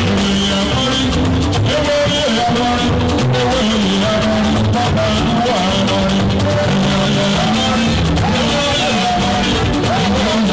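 Band music with drums, guitar and a singing voice, playing at a steady, even level.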